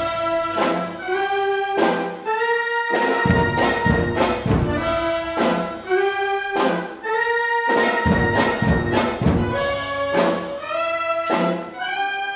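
Wind band playing a slow, solemn marcha cristiana: brass and woodwinds hold a sustained melody over heavy percussion strikes that fall a little over a second apart.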